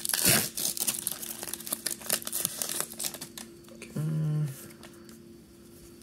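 Foil Pokémon booster pack wrapper crinkling and tearing as it is opened by hand, loudest just after the start. A brief hummed voice sound comes about four seconds in.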